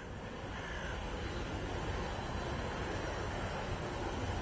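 ChME3 shunting diesel locomotive's six-cylinder diesel engine running as it approaches, a low rumble getting slowly louder, over a steady high hiss.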